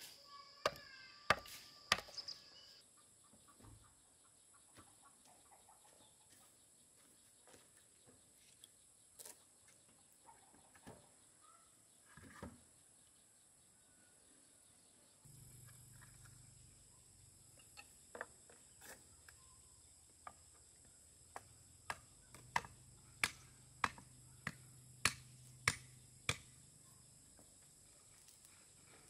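A series of sharp knocks, like a tool chopping or striking: three near the start, then scattered ones, then a quick run of about ten, roughly one every 0.7 seconds, in the second half. Insects drone steadily and high-pitched behind them.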